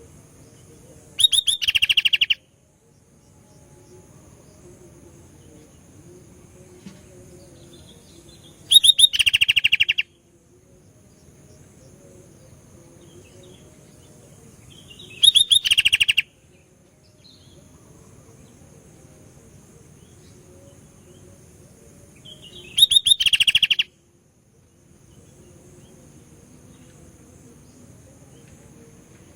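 Sooty-headed bulbul (kutilang) singing: four short bursts of rapid chattering song, each about a second long, coming about seven seconds apart.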